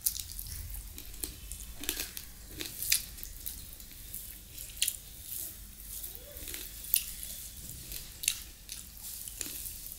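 Wet mouth sounds of eating rice and chicken curry by hand: chewing and lip-smacking heard as a string of sharp, irregular clicks, with soft squishing as fingers knead rice and curry together on a steel plate.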